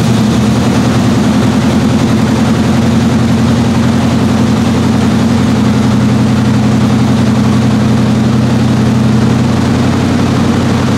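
1985 Chevrolet Monte Carlo SS's original 305 H.O. V8 idling steadily through a freshly installed Hooker Blackheart long-tube header and 2.5-inch stainless steel exhaust system, on its first run with the new exhaust.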